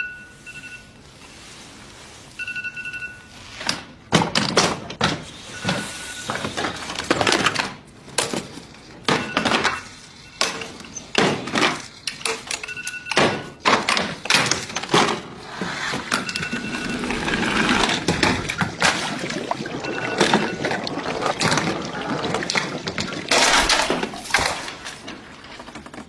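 A phone alarm beeping in short repeated pulses of a high tone, under the knocks, clatters and rolling of a homemade chain-reaction contraption as its pieces tip, roll and fall one after another.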